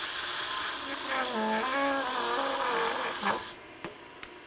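Rubber crepe abrasive cleaning stick pressed against the spinning sanding drum of a drum sander: a steady hissing rasp, with a wavering squeal partway through, as the stick scrubs clogged dust out of the abrasive. The rasp stops sharply about three and a half seconds in as the stick comes off the drum, leaving quieter running and a few light clicks.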